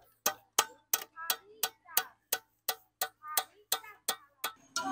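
Steady, evenly spaced ticking, about three sharp ticks a second like a clock or woodblock beat, with a steady tone coming in near the end.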